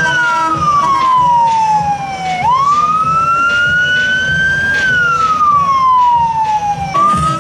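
A siren wailing, its pitch sliding slowly down, then up, then down again, and starting to rise once more near the end. Low vehicle rumble runs underneath.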